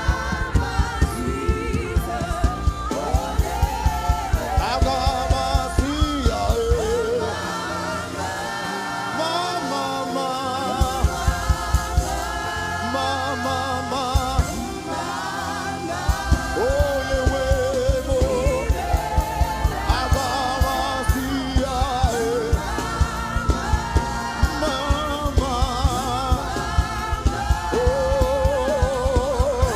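Live gospel music: a singer and backing voices over a band with a steady drum beat, the drums dropping out twice for a few seconds.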